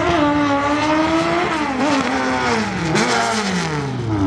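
Drag-racing Honda Civic hatchback at full throttle down the strip. The engine note climbs for about a second and a half, then falls with several sharp dips as the car goes past and away.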